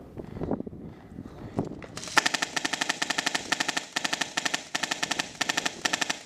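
An airsoft gun firing on full auto in rapid runs of shots with short breaks between them. The shooting starts about two seconds in, after some light rustling.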